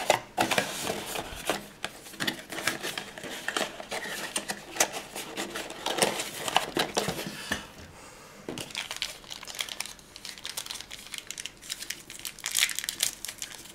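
Cardboard packaging being handled: rustling and crinkling with many light clicks and taps, busy for the first half, quieter for a few seconds, then another burst of rustling near the end.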